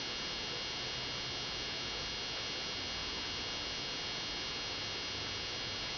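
Steady background hiss with a faint, constant high-pitched electrical whine and hum; no distinct event stands out.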